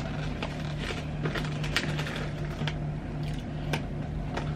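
Plastic takeaway food containers being handled, giving scattered crinkles, clicks and taps, over a low hum.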